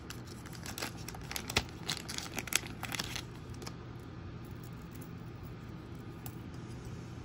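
Small plastic packaging crinkling and clicking as it is handled, busiest in the first three seconds or so, with a faint steady low hum underneath.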